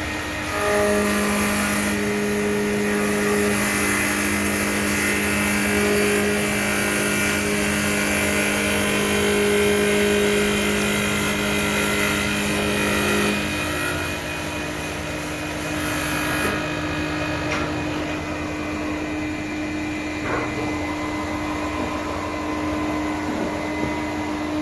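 Automatic CNC wood lathe running: a steady motor hum with a high hissing noise over it. Part of the hum drops out about halfway through, and the hiss cuts off about two-thirds of the way in, leaving a steady lower hum.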